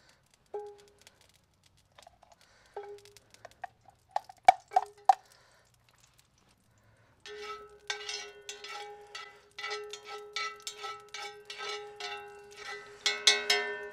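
Metal spoon knocking and scraping in a cast-iron skillet as beef tallow is spooned in, the pan ringing with each knock. A few sharp knocks come about four to five seconds in, then a long run of quick scrapes and ticks over a steady ring through the second half.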